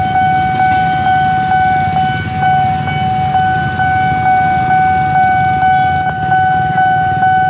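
Railway level-crossing warning alarm sounding: a steady electronic tone that pulses about twice a second. There is a low rumble of engine noise underneath.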